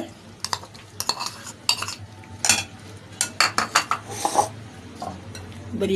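A metal spoon clinking and scraping against a glass bowl as chopped tomatoes are tipped in and stirred through boiled chickpeas: a run of irregular sharp clicks, over a steady low hum.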